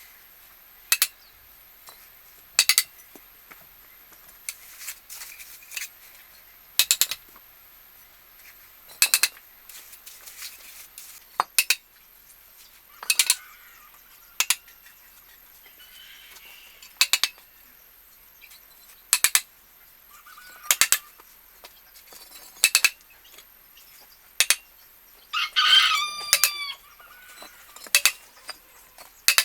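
Sharp taps about every two seconds. About 25 seconds in, a rooster crows once.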